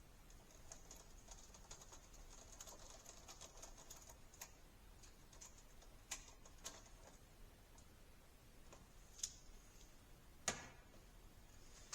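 Faint clicking and light rattling of small parts as a shop light fixture is handled and put back together, with a few sharper clicks, the loudest about two thirds of the way through and near the end.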